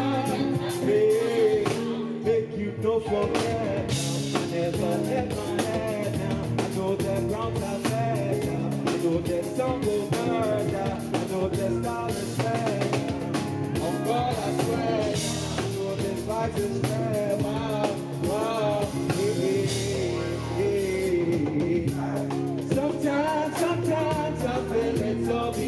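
Live band playing a steady groove on drum kit, bass guitar, keyboard and congas, with a man singing over it at times.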